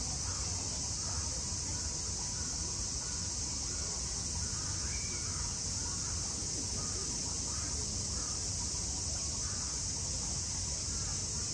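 Steady high-pitched buzz of a summer cicada chorus, with faint scattered voices or calls underneath.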